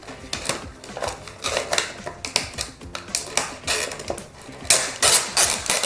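Plastic toy packaging crinkling and rustling in quick irregular crackles as a doll is unwrapped, loudest near the end.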